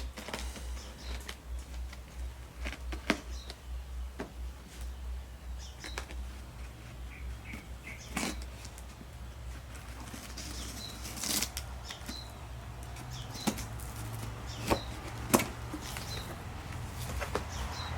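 A package holding a new lathe chuck being opened by hand: rustling and flapping wrapping, with scattered clicks and knocks, a few sharper ones in the second half, over a steady low hum.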